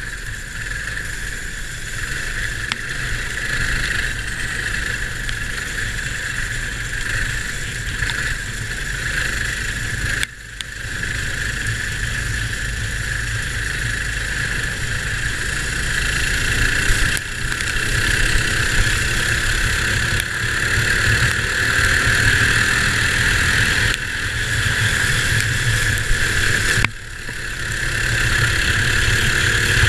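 Sealed Predator 212 single-cylinder four-stroke go-kart engine running hard at race pace, recorded onboard. The engine note drops sharply twice, about ten seconds in and near the end, then builds back up.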